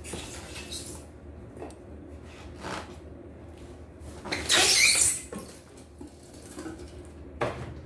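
Cardboard box and its packing rustling and scraping as a boxed embroidery machine is worked loose and pulled out by hand. It comes in a few short handling noises, with the loudest rustling about four to five seconds in.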